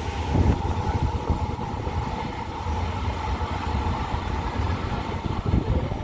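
Low rumble of an express train's coaches on the rails, moving away just after its last coach has passed, with a steady hum under it.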